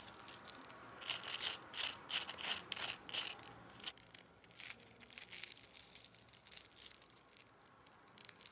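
Crisp cornstarch-coated fried potato strips crackling and crunching as they are pulled from the basket and broken open by hand: a quick run of sharp crunches between about one and three and a half seconds in, then sparser, fainter crackles.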